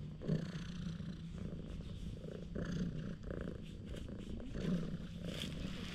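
Domestic cat purring loudly and steadily while being stroked. The purr swells and eases about once a second with its breathing.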